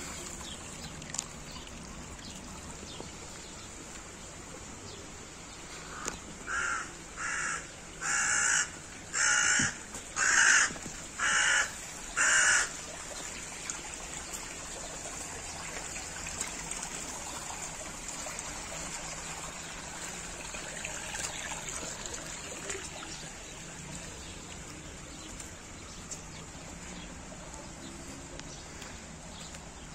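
A crow cawing about eight times in a row, roughly one caw a second, the calls growing louder toward the end of the run. Under it runs the steady trickle of a small stream.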